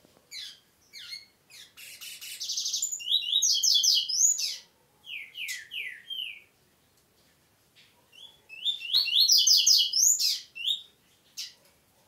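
Male double-collared seedeater (coleiro) singing two bouts of rapid, high, sweeping notes. The first opens with single notes and a buzzy trill and runs about six seconds; the second comes after a pause and lasts about two and a half seconds.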